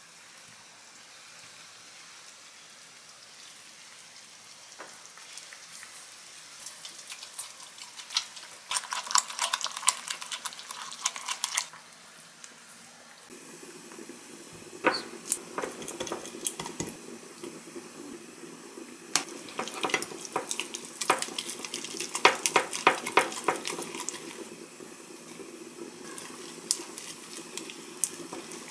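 A spoon stirring and scraping a thick sauce in a glass mug, making quick runs of clinks and scrapes in two long spells.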